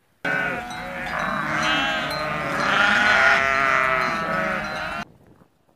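A flock of sheep bleating, many calls overlapping at once, cutting off suddenly near the end.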